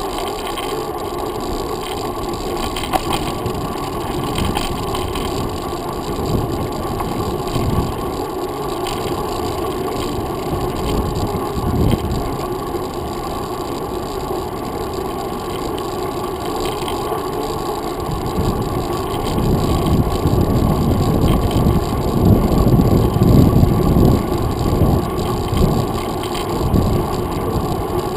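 Steady wind and road rumble from a mountain bike rolling along a paved trail, picked up through a handlebar-mounted GoPro Hero 2. The rumble grows louder for several seconds about two-thirds of the way through.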